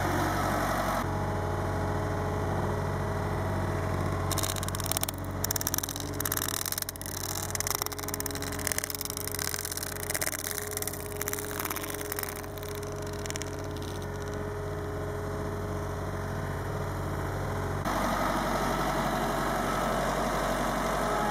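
Road roller's engine running steadily, with a stretch of crackling and crunching in the middle as the roller's drum rolls over a small plastic toy RC helicopter on gravel.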